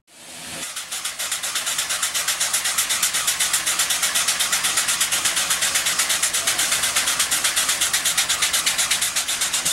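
Union Pacific 3985 Challenger steam locomotive standing with steam up, giving a steady, high-pitched hiss that pulses evenly at about eight beats a second.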